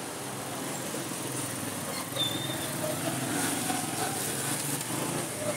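Steady street-market ambience: a mix of passing traffic and indistinct background voices, with a brief high squeak about two seconds in.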